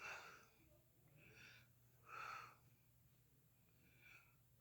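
Faint breathing of a woman exercising: about four short breaths in and out. The breath a little past two seconds in is the loudest.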